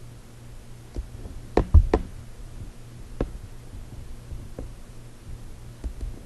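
Sharp knocks and clicks from working a computer mouse at a desk: single knocks about a second in, around three seconds and near the end, and a quick cluster of three, the loudest, a little under two seconds in. A steady low hum runs underneath.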